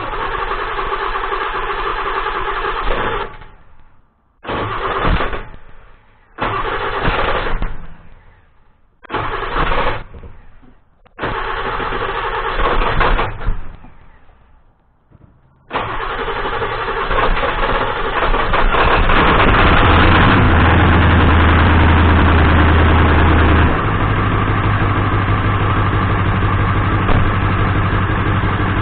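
7.3 Powerstroke V8 diesel cranked by its starter in five separate tries without catching, then firing on the sixth about 16 seconds in and running on, louder for a few seconds before settling to idle. It is hard to start because only one or two of its glow plugs work.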